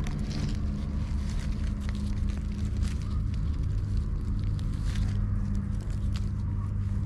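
Dry fallen leaves crackling and rustling in scattered sharp clicks as a gloved hand digs through leaf litter, over a steady low hum.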